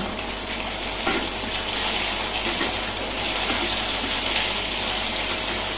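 Boiled taro slices sizzling steadily as they shallow-fry in hot oil in a stainless steel pan. There is one light clink of the steel spatula against the pan about a second in.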